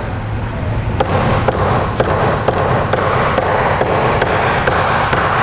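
Repeated dull knocks of a knife's spine hammering a cooked lobster claw wrapped in a towel on a cutting board, about two strikes a second, to crack a hard claw shell.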